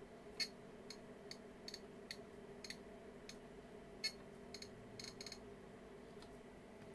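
Faint, irregular light clicks, about a dozen, from test gear being handled on the workbench, over a low steady electrical hum.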